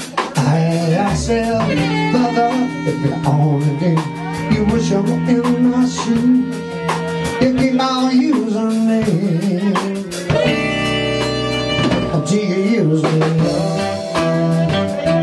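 A live band playing: electric guitar and drum kit, with a voice singing at times.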